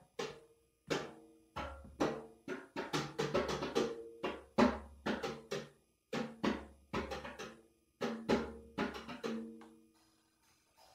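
Percussion music: sharp drum strikes, some spaced out and some in quick runs, each ringing on a few pitched tones, with a low hum under parts. It dies away near the end.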